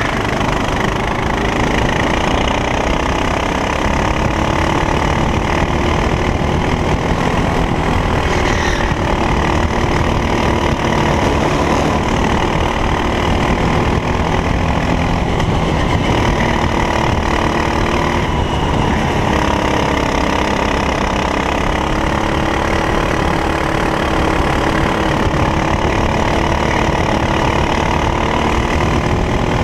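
Racing kart engine running hard and continuously, its pitch rising and falling again and again as it revs up and drops back.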